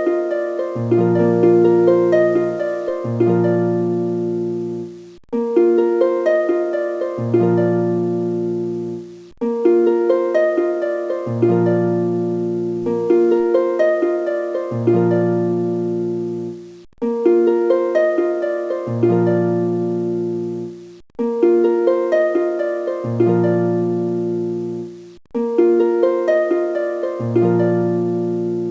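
Background music: a short melody over a low bass line, the same phrase repeating about every four seconds.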